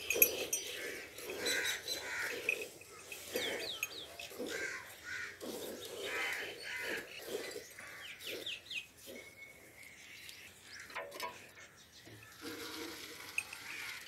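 Milk squirting in rhythmic jets into a partly filled metal bucket as a cow is milked by hand, about two squirts a second. Birds chirp briefly in the background a couple of times.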